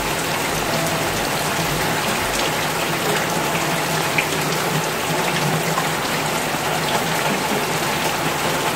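Thinly sliced shallots and garlic sizzling in hot oil in a frying pan as they turn golden brown: a steady crackling hiss.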